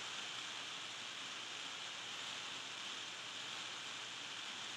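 Steady faint hiss of the recording's background noise, with no other sound.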